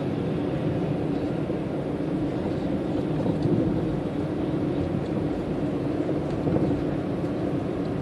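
Steady low rumble of a car driving on a paved road, heard from inside the cabin.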